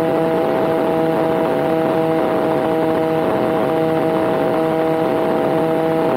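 Kitfox light aircraft's engine and propeller running steadily at constant power in flight, heard from inside the open-framed cockpit.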